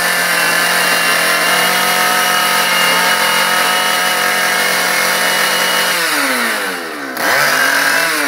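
Two-stroke chainsaw engine converted to drive a massager head, running steadily at high revs under load. About six seconds in the revs drop away, then are blipped back up briefly and fall again near the end.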